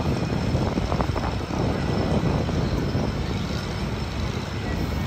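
Steady low rumble of wind buffeting a phone microphone on an open tour-boat deck, with no clear engine note.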